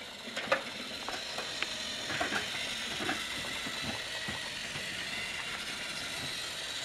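Battery-powered Trackmaster toy engine running along plastic track, its small motor and gears whirring steadily, with scattered light clicks.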